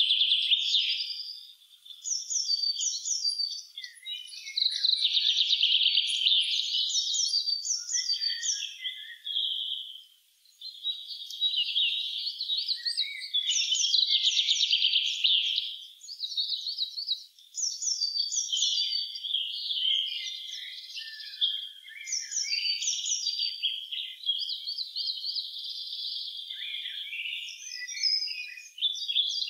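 Songbirds singing: long, fast, high-pitched trilling phrases lasting several seconds each, separated by short pauses and almost continuous in the second half.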